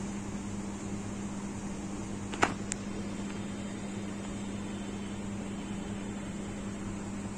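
Steady mechanical hum at one pitch, with two sharp clicks about a quarter second apart about two and a half seconds in.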